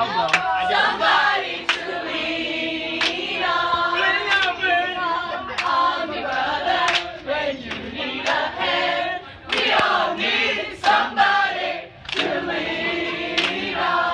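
A crowd of young men and women singing together in unison, a team chant or song, with sharp hits keeping a slow beat about every second and a half.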